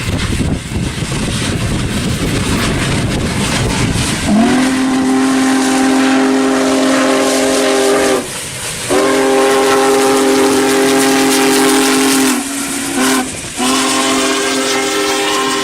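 Diesel locomotive running with a low rumble, then its multi-chime air horn sounds a long, long, short, long pattern, the standard grade-crossing signal, the last blast still sounding at the end.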